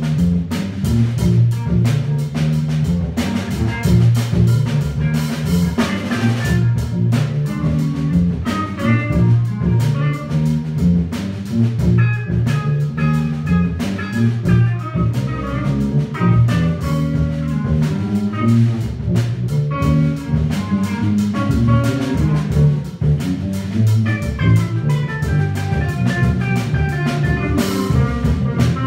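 Small live band of electric bass guitar, electric guitar and drum kit playing a jazz-funk groove. The bass carries a busy low line under drum-kit strokes while the guitar plays runs of single notes above.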